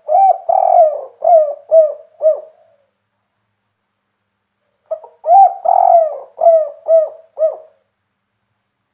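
Spotted dove cooing, two full song phrases a few seconds apart. Each phrase opens with a longer note and ends in a run of short, clipped notes. The song is the big-voiced 'kuk 3' type that dove keepers prize.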